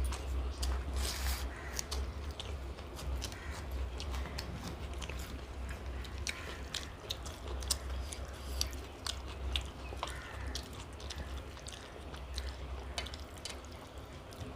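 Close-up eating sounds: fried fish and rice being bitten and chewed, with irregular small crunches and clicks, over a steady low hum.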